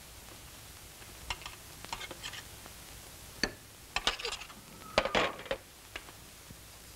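Clinks and scrapes of a frying pan and metal utensil as a steak is slid onto a plate, then the pan set down on a metal serving trolley, among clinks of a knife and fork on a plate. The loudest clatter comes about five seconds in.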